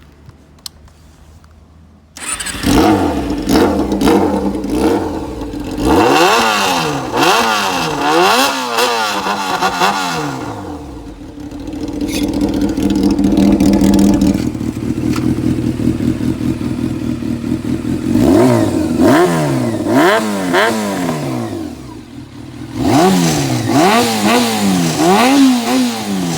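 Honda CB400 Super Four (NC31) inline-four motorcycle engine through a Pretty Racing 4-2-1 exhaust. It starts about two seconds in and is revved in a series of quick throttle blips, settles to a steadier idle for several seconds, then is blipped again.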